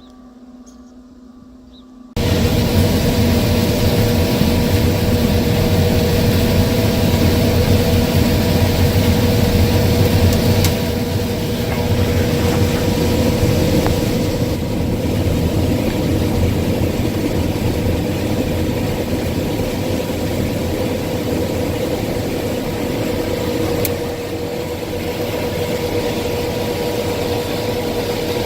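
Case IH 6140 combine running while harvesting corn: after about two seconds of quiet the sound cuts in abruptly as a loud, steady machine drone with a constant hum, easing slightly about halfway through.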